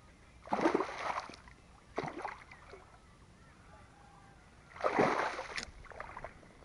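Water splashing in short bursts, two louder ones and two weaker ones.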